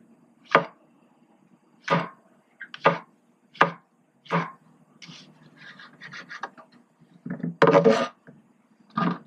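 Chef's knife slicing portobello mushroom caps into strips on a plastic cutting board, each cut a separate knock about a second apart. Near the end comes a longer, louder scrape of the knife across the board, then one more cut.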